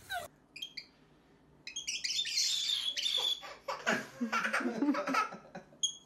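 A baby laughing in repeated bursts, starting about two seconds in.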